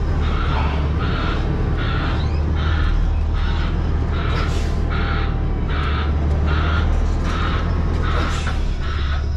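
Vehicle reverse alarm beeping in a steady rhythm, about four beeps every three seconds, over the steady low drone of an idling truck engine.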